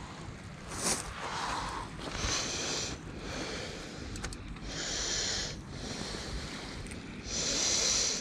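Wind rumbling on the microphone, with short hissing rushes about every two to three seconds.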